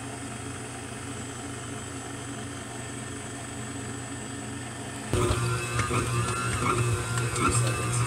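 KitchenAid stand mixer running on slow speed, its dough hook kneading bread dough in the steel bowl. The steady motor hum jumps much louder about five seconds in, with an uneven churning as the dough turns in the bowl.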